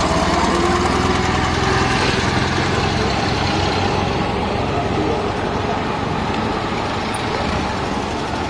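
Engines of vintage vehicles running at low speed close by, a steady engine drone.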